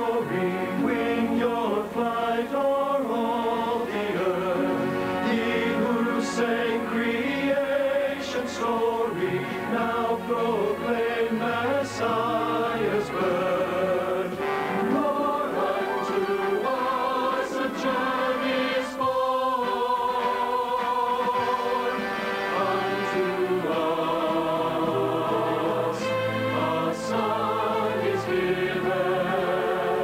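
Mixed choir of men's and women's voices singing a Christmas song, continuously, with vibrato in the held notes.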